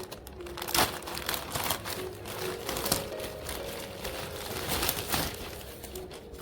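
Packaging being handled and opened by hand: irregular crinkling and rustling with sharp crackles, the loudest a little under a second in.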